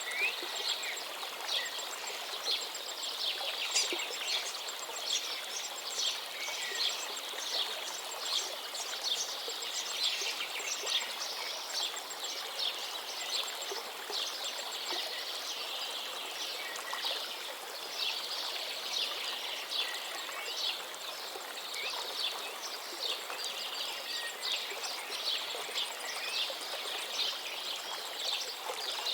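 Running water of a stream or small waterfall, a steady hiss, with many birds chirping in short, quick notes over it.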